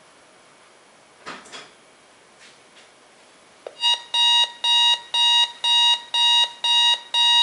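Durabrand CR-502 clock radio's alarm buzzer going off about four seconds in, as the clock reaches the set alarm time: a loud, high beeping in even pulses, about two a second. A few faint knocks come before it.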